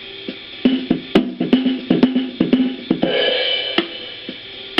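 Boss DR-770 drum machine playing a jazz rhythm pattern through a small boombox speaker: snare, hi-hat and cymbal hits over a held low note, with a cymbal wash about three seconds in.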